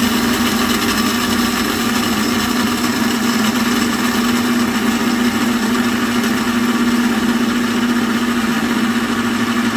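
Built-in grinder of a Baumann grind-and-brew coffee maker grinding coffee beans: a loud, steady motor hum at an even pitch.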